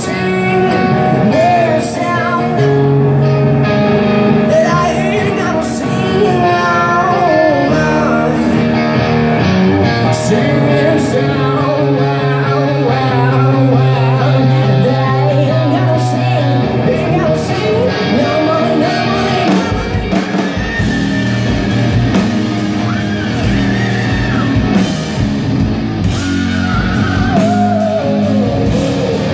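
Live rock performance: singing over electric guitar and drums. About two-thirds of the way through, the drums and low end come in much heavier.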